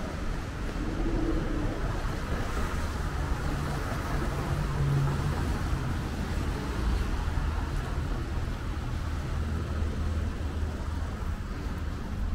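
Steady city street traffic noise on a wet road: a low rumble of vehicles, with a low engine hum standing out from about three to six seconds in.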